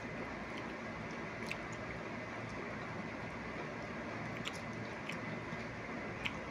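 People chewing and biting banana, with a few faint sharp clicks over a steady background hiss.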